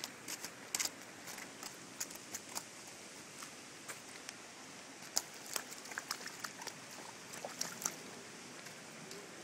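A toddler's rubber boots stepping in shallow puddle water and soft mud, making faint, irregular small splashes and squelches, busiest in the second half.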